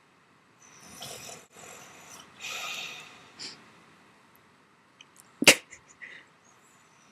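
Woman snoring in her sleep: two noisy, breathy snores in the first few seconds, then a sudden sharp burst about five and a half seconds in, the loudest sound, with a few small clicks around it.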